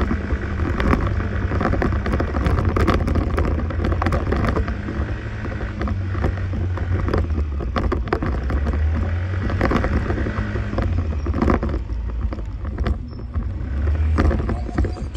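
Arora scooter being ridden through town: the engine is running under a heavy, uneven wind rumble on the microphone, with frequent small knocks.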